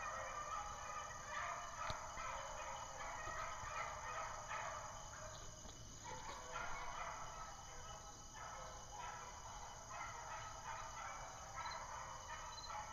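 A pack of beagles baying out of sight, many voices overlapping in a continuous run, the cry of hounds on a rabbit's trail.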